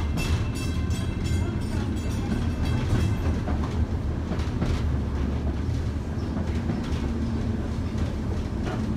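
PCC streetcar running along the track, heard from inside the car: a steady low rumble of wheels on rail. During the first three seconds or so there is rapid clicking and a faint high whine.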